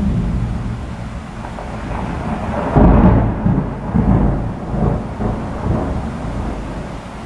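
Thunder rolling: a low rumble that swells into a loud peal about three seconds in, then rolls on in several waves and fades toward the end.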